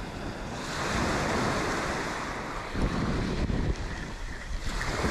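Small waves breaking and washing up a sandy shore, swelling about a second in, with wind rumbling on the microphone.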